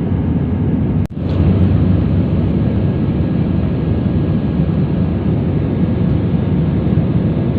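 Steady low drone of an airliner cabin in flight, jet engines and rushing air, with a faint steady whine above it. Broken by a brief dropout about a second in.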